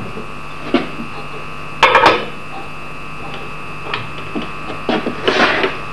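Steel tools and a steel-backed diamond block being handled on an axe-grinding jig: a few knocks, the loudest about two seconds in, then a short scraping stroke near the end, over a steady electrical hum.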